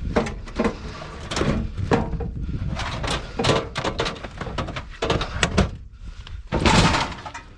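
Knocks, thuds and clatter of hard e-waste items, plastic and metal casings such as cash registers, being handled, dragged and set down, with the loudest bang near the end.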